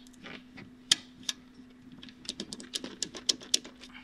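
Sharp metallic and plastic clicks and taps from hand tools and engine-bay parts being fitted: two single clicks, then a quick uneven run of them in the second half, over a faint steady hum.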